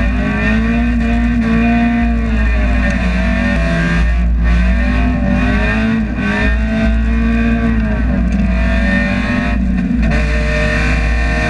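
Spec Miata race car's four-cylinder engine heard from inside the cockpit, running hard at high revs, its pitch climbing and dropping several times as it is driven on and off the throttle.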